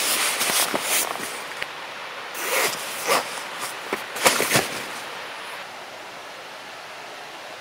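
Nylon fabric rustling and swishing as a rolled sleeping pad and its stuff sack are handled and packed, in a run of short swishes that dies down about two-thirds of the way through.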